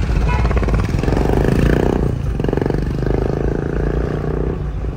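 A car driving over a rough concrete road, heard from inside the cabin: a steady low rumble of road and engine. From about a second in, an engine's rapid, even pulsing rises over it in three stretches, then fades near the end.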